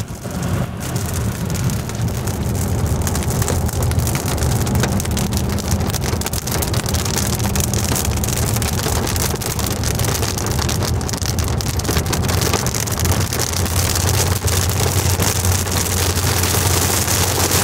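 Rain hitting a car's windshield and roof while driving on a wet highway, heard inside the cabin over the steady rumble of the car and its tyres on the wet road. The hiss of water grows louder near the end.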